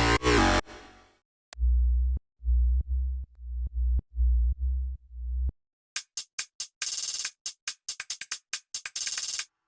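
Dubstep electronic music: after a short break, a run of deep bass notes with light ticks, then another break and a fast stuttering run of bright chopped noise that packs closer together near the end.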